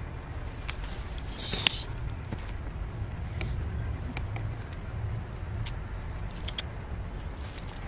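Leaves and small twigs rustling and snapping as leafy sprigs are picked from a bush and handled in the fingers, with scattered small clicks over a steady low rumble. One sharp snap stands out about a second and a half in.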